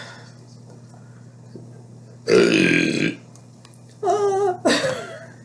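A person burping three times: one long loud belch about two seconds in, then two shorter ones in quick succession near the end, the first of these with a wavering pitch.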